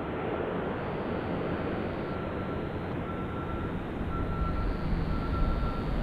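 Jet engines of an Airbus A380 landing: a steady rumble with a faint whine that comes and goes, growing a little louder near the end.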